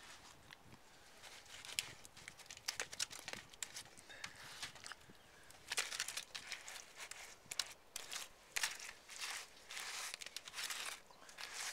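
A gloved hand pressing and rubbing wet clay mud into a dry straw-clay wall, giving irregular crackles and rustles of straw and mud at an uneven pace.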